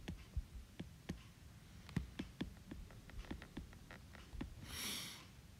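Stylus tip tapping and sliding on a tablet's glass screen during handwriting: faint, scattered clicks, with one short hiss near the end.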